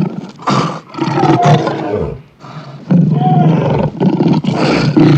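Sheep bleating: a run of about five loud, wavering baa calls, one after another with short gaps.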